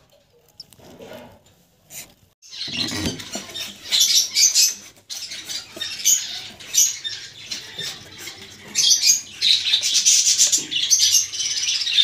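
Cage birds chattering and chirping, a dense high-pitched din that starts about two and a half seconds in and carries on steadily.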